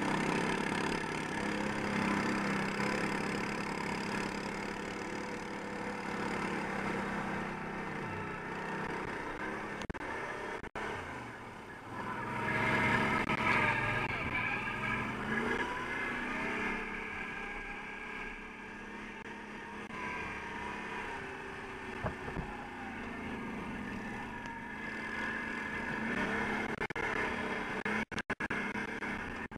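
Quad bike (ATV) engine being ridden hard over rough ground, its pitch rising and falling as the throttle is worked, strongest and most varied about halfway through.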